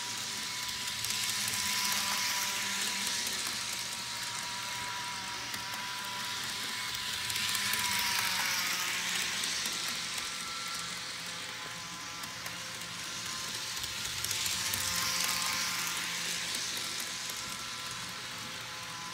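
Bachmann HO scale model train running laps on a loop of track: a thin steady motor whine with the light rattle of its wheels on the rails, growing louder as the train passes close and fading as it goes round the far side, about every six or seven seconds.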